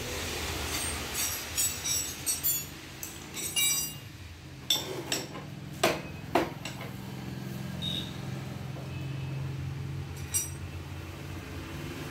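Metal hand tools clinking and knocking on a motorcycle's front wheel and axle as the wheel is taken off: a string of sharp clinks with ringing, most of them in the first seven seconds and one more near the end, over a low steady hum.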